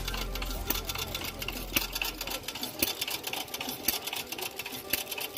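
Small antique stationary gas engine running, belted to a grinding wheel: a rapid, uneven clatter of clicks and ticks.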